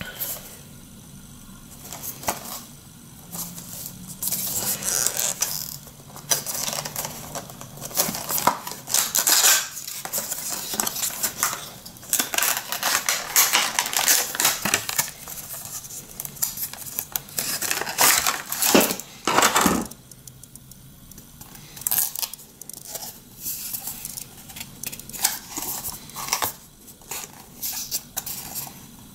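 A small cardboard product box being handled and opened: rustling, scraping and light clicks of the card and its inner tray being slid out.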